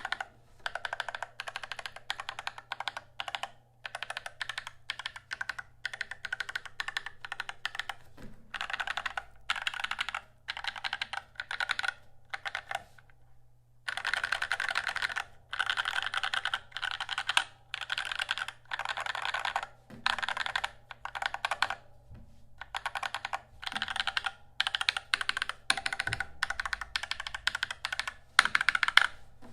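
Typing on an XD75re ortholinear mechanical keyboard with lubed Holy Trash Panda tactile switches, a steel plate with dampening foam, an acrylic case and PBT Cherry-profile keycaps. The keystrokes come in quick runs with short pauses between them, and one longer pause about 13 seconds in.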